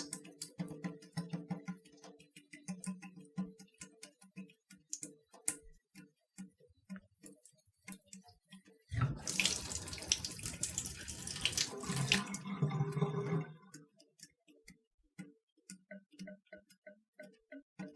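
Water dripping into standing water in a bathroom with pitched plinks. About nine seconds in, running water comes on suddenly for around three seconds and is shut off, and the dripping carries on at about two or three drops a second.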